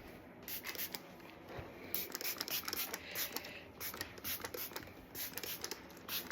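Scratchy rubbing strokes through a dog's coat during grooming, many short strokes at an irregular pace.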